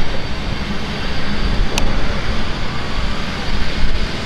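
Steam locomotive (1912-built Canadian National 2141) standing idle, giving a steady rumble and hiss, with one sharp click a little under two seconds in.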